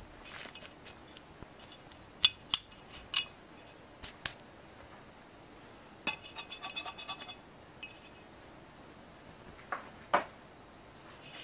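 Crushed-biscuit crumb crust being pressed and smoothed by hand into a metal non-stick cake pan: soft scratching of crumbs with a few sharp clinks against the pan, and a quick rattling run of clinks about six seconds in.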